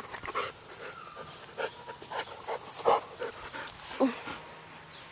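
Labrador-mix dog panting in quick, uneven breaths while playing, with a louder breath or short vocal sound about four seconds in.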